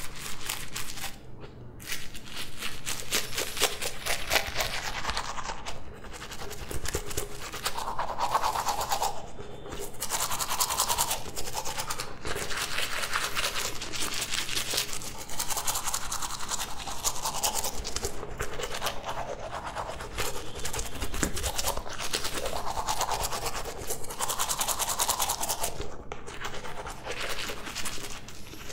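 Manual toothbrush scrubbing teeth in quick back-and-forth strokes, the tone of the scrubbing shifting every couple of seconds, with a few brief pauses.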